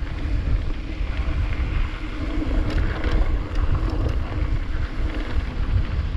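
Wind buffeting the microphone of a helmet or bike-mounted action camera on a moving mountain bike, with the rumble of tyres over a rough, rocky trail and a few short knocks from the bike.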